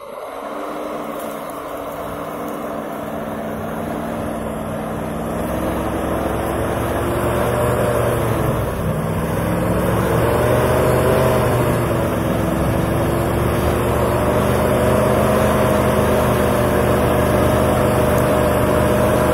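Engine of a small all-terrain vehicle running and growing steadily louder as it draws closer, its pitch dipping and rising again about halfway through as the load changes.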